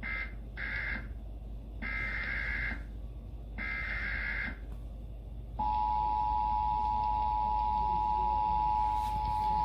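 Emergency Alert System broadcast header: a few short bursts of digital data tones (the SAME header that encodes the alert), then the steady two-tone EAS attention signal starting about five and a half seconds in, louder than the data bursts.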